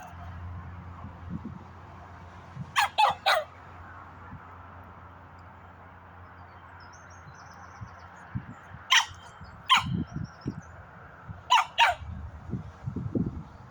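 A dog barking in short bursts: three quick barks about 3 s in, two more around 9 to 10 s and two near the end, with faint bird chirps in between.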